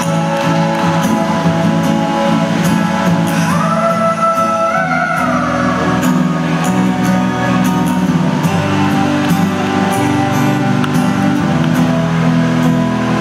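A male singer performing a song live with acoustic guitar through a stage PA, holding a long note about four seconds in; later the guitar and accompaniment carry on without the voice.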